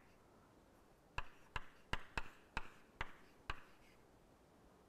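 Chalk tapping on a chalkboard as a word is written: a quick run of about seven sharp taps starting about a second in, roughly three to the second.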